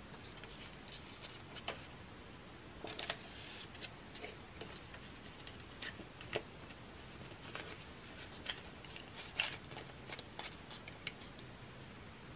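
Faint rustling of a folded paper instruction card being handled and lifted out of the watch box's cardboard tray, with scattered light clicks and taps of card against card.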